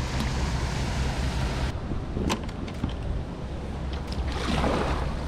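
Kayak paddling: a double-bladed paddle knocking lightly against the kayak a few times and a swelling rush of water from a stroke near the end, over a steady low rumble of wind on the microphone.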